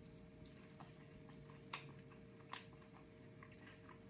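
Faint chewing of a chicken McNugget, with soft scattered clicks and two slightly louder clicks a little under a second apart near the middle.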